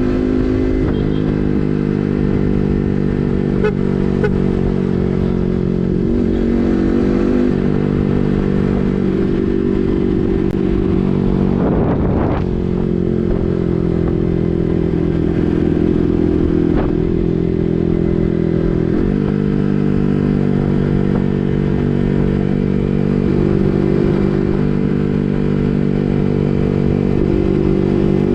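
Yamaha MT15's single-cylinder engine running through an SC Project full-system exhaust while riding. The steady exhaust note shifts in pitch several times, with a brief dip about twelve seconds in.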